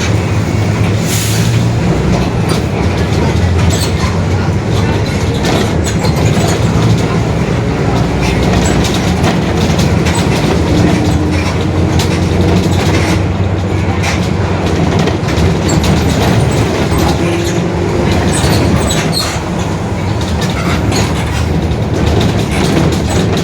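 Mercedes-Benz OF-1721 city bus rear differential growling very loud over the steady low drone of the running driveline, with many small rattles and clicks from the bus body throughout.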